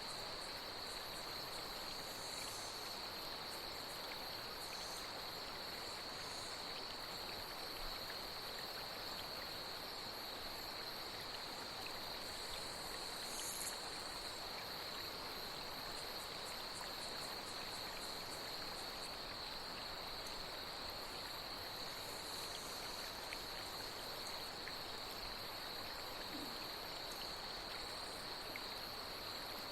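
Night insects chirping in a steady, unbroken high drone, with a few short higher chirps now and then, over the even hiss of flowing water.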